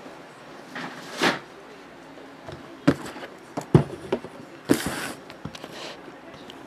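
Handling noises on a desk: a few sharp clicks and knocks, with two short rustling swishes.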